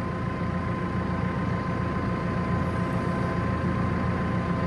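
Telehandler's diesel engine running steadily, heard from inside the cab, with a thin steady whine above it.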